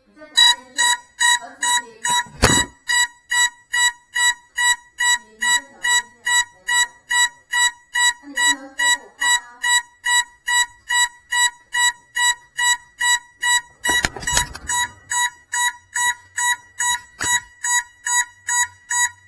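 GEPRC Cinelog 35 FPV drone's lost-model beeper sounding after a crash: one repeated high beep, about two and a half a second. A few knocks break in as the drone is handled, the loudest about two seconds in and about fourteen seconds in.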